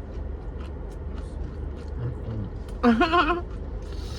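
A person eating, with faint chewing clicks, lets out a loud, wavering, pitched "mmm" of enjoyment about three seconds in, after a shorter low hum of the voice. A steady low hum lies underneath.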